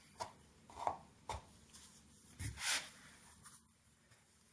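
A few light knocks and taps, two with a dull low thud, then a short brushing scrape: a plastic cup mould and powdery bath bomb mix being handled on a metal board.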